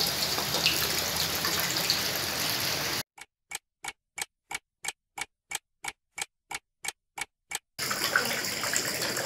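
Clock ticking, about three even ticks a second for roughly four and a half seconds, with silence between the ticks. Before and after the ticking there is a steady rushing hiss.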